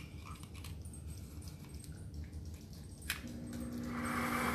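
Faint clicks and taps of an adjustable measuring spoon being set and dipped into a tin of cream of tartar. About three seconds in, a steady hum starts, and a louder hiss joins it near the end.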